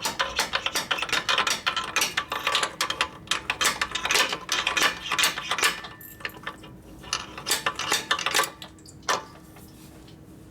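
Rapid, irregular metal-on-metal tapping and clinking as a tight-fitting Harley Ironhead Sportster shifter shaft is tapped through its bore. The clicks are dense for about six seconds, grow sparser, and stop a little before the end.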